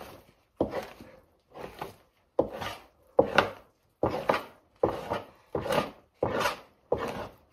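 Fleshing knife scraping fat and membrane off a raccoon hide stretched over a PVC fleshing beam, in about ten short strokes a little over one a second, louder after the first couple.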